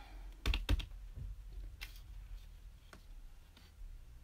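Hands handling lumps of soft clay on a work table: two quick knocks about half a second in, then a few fainter scattered ticks over a low steady hum.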